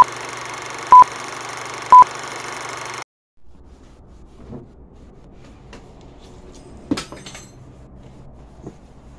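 Film-leader countdown sound effect: three short beeps a second apart over a steady hiss, cutting off suddenly about three seconds in. Then low room noise with a few light clicks and one sharper knock about seven seconds in.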